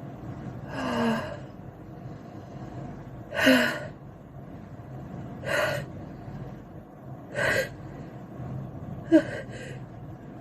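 A woman's short gasping 'ah' breaths before a sneeze, about every two seconds, the loudest about three and a half seconds in and a quick double gasp near the end. It is the build-up of a sneeze brought on by tickling inside her nose, still not released.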